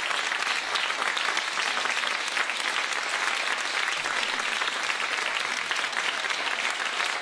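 Studio audience applauding steadily after a live song: a dense patter of many hands clapping.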